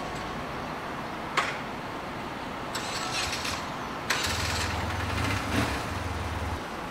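A motor vehicle's engine comes in with a sharp start about four seconds in, runs low and steady for about two seconds, then drops away near the end, over steady outdoor background noise. A single short click comes about a second and a half in.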